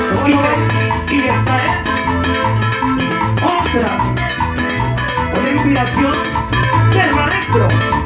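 Live Latin dance band playing an instrumental passage over a steady beat: timbales and cymbal, electric bass and keyboard, amplified through the stage sound system.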